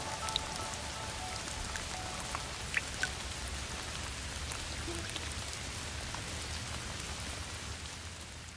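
Steady rain falling, with scattered individual drops ticking close by; it starts to fade away near the end.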